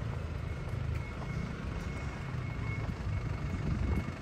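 Street ambience: a steady low rumble of road traffic.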